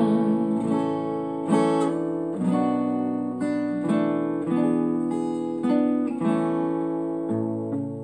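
Acoustic guitar playing slow strummed chords, about one a second, each left to ring and fade.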